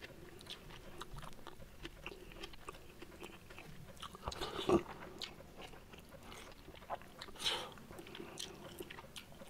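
Close-miked eating sounds of a man chewing mouthfuls of rice taken by hand: soft wet chewing, lip smacks and small clicks, with two louder short mouth noises, one about halfway and one a little later.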